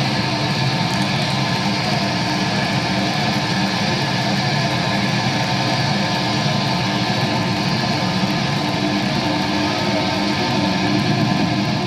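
Electric guitar feedback and amplifier noise droning on without a break: a steady, dense wall of distortion with a few held tones in it.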